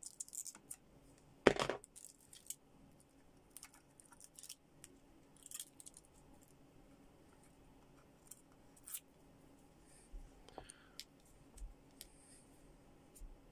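Handling noise from a plastic wireless-earbud charging case: scattered light clicks, taps and rustles as a knife blade works at the case and protective plastic film is peeled off, with one sharp louder clack about a second and a half in.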